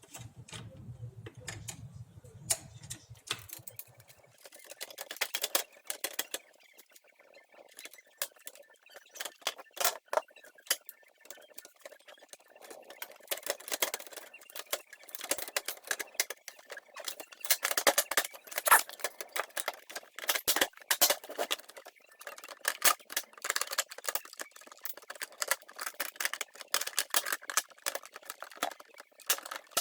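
Irregular plastic clicks, knocks and rattles as a Canon LBP-2900 laser printer's casing and parts are handled and fitted back together, denser and louder in the second half. A faint low hum runs for the first few seconds.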